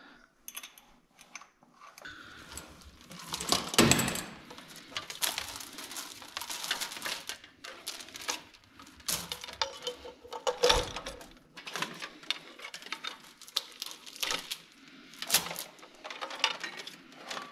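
Irregular clattering, rustling and clicking as a coil of quarter-inch plastic air line and its fittings are handled, with a few sharper knocks about four, eleven and fifteen seconds in.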